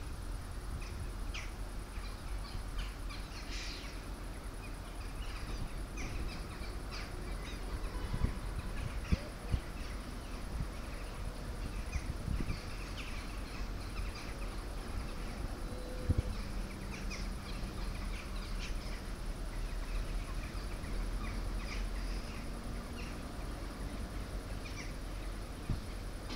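Outdoor ambience: small birds chirping on and off over a steady low rumble, with a few short knocks around the middle.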